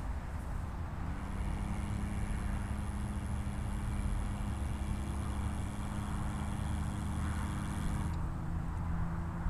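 Low wind rumble on the microphone, with a steady machine hum of several even pitched tones that starts about a second in and cuts off abruptly about eight seconds in.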